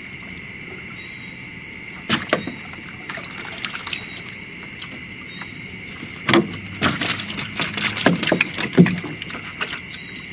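Water splashing and knocking from a lift net on a bamboo pole being hauled and shaken against a small boat's side. The sounds come in a short cluster about two seconds in and a longer run from about six to nine seconds in. Crickets chirr steadily underneath.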